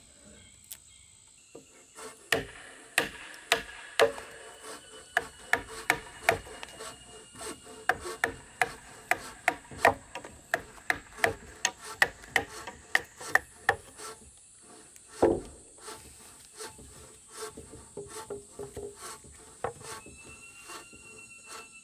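Chiselling timber by hand: sharp wooden knocks about two a second, a heavier knock about two-thirds of the way through, then lighter, sparser knocks.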